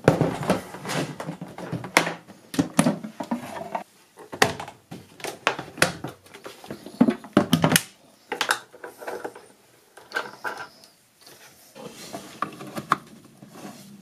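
Portable typewriter carrying case being handled: scraping and sliding across a wooden table, with a run of sharp knocks and clicks from the case and its metal latches.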